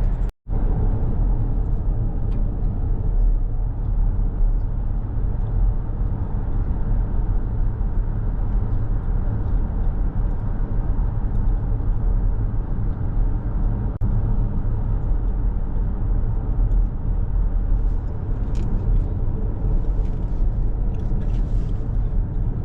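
A car driving at road speed, heard from inside: a steady low rumble of engine and tyres on the road.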